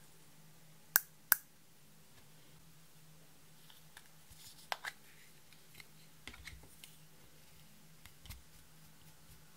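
Sharp clicks of hard plastic makeup packaging being handled: two loud ones about a second in and two more near the middle as a heart-shaped highlighter compact is opened. Light taps and scrapes follow in the second half as a plastic spatula breaks up the pressed highlighter powder.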